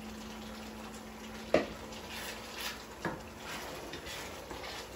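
Shrimp and vegetables simmering in oil in a wok, a soft steady sizzle, with a sharp knock of a wooden spatula against the pan about one and a half seconds in and lighter knocks and scrapes as the shrimp are stirred in.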